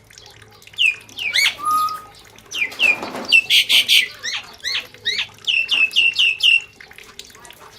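Birds calling: short, downward-sweeping whistled notes, a harsh squawk about three and a half seconds in, and a quick run of five notes near the end.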